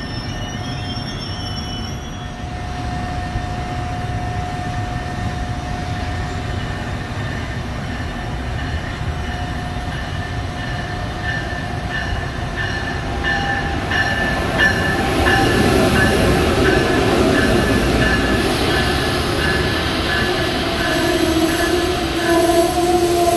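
Electric passenger trains on the Northeast Corridor: an NJ Transit ALP-46 locomotive with bi-level coaches runs past, then an Amtrak train behind an ACS-64 electric locomotive comes in on the near track. The sound grows louder as the Amtrak coaches roll past close by, with a regular clicking of wheels over the rails and steady tones near the end.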